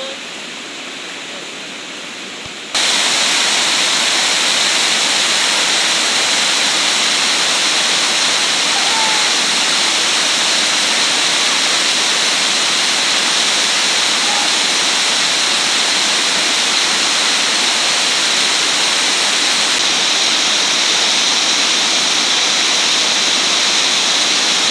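Water pouring over a river weir: a loud, steady rush that cuts in suddenly about three seconds in, after a quieter sound of river current.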